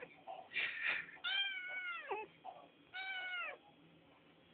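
Kitten meowing three times: a short rough call, then two clearer high meows that drop in pitch at the end.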